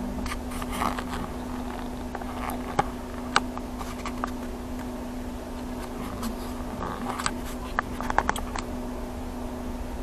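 Inside a moving car: steady low engine and road rumble with a constant hum, and scattered small clicks and rattles, a cluster of them about three-quarters of the way through.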